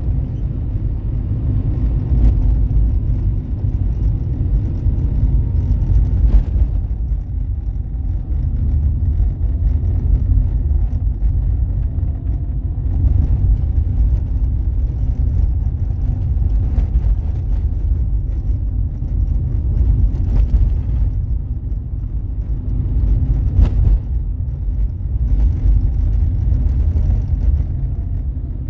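A car being driven, with a steady low rumble of engine and tyres. A few sharp knocks come through, about two, six and twenty-four seconds in.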